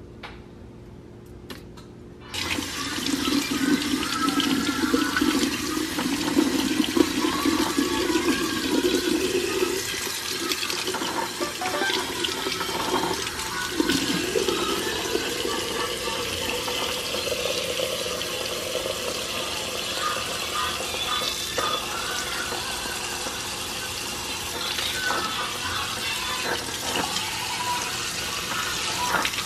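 Kitchen faucet turned on about two seconds in, its stream running into a stainless steel sink and splashing over lobster tail meat as it is rinsed by hand.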